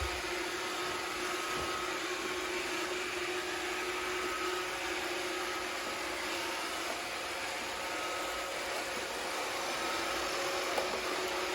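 iRobot Roomba 550 robot vacuum running, its motors giving a steady whir with a constant hum. A small click near the end.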